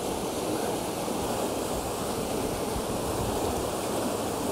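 Steady, even rush of river water pouring through a weir hatch into the pool below.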